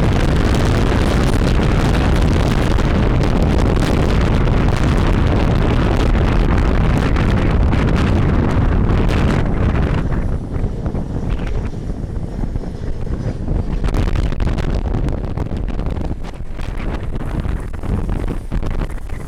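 Strong gusty wind buffeting the microphone in a low, rumbling rush, heavy for about ten seconds and then easing into uneven gusts.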